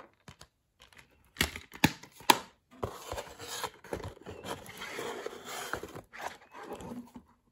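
Plastic DVD cases being handled: three sharp clicks between about one and a half and two and a half seconds in, then several seconds of scraping and rustling as a case is slid out of a cardboard box-set sleeve, with a few lighter knocks near the end.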